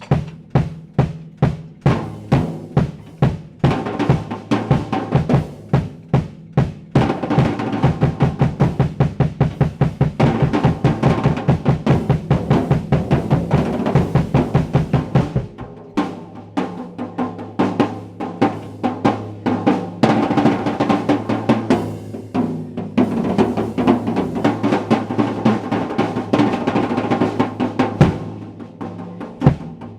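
Drum kit solo. Steady, evenly spaced hits give way about seven seconds in to a fast, even run of low drum strokes. At about the halfway mark this changes to busier, denser playing around the kit.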